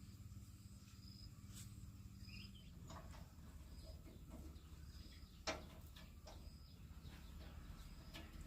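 Near silence: faint ambience with a low hum, a short high chirp repeating about once a second, and a few soft clicks, one a little louder about five and a half seconds in.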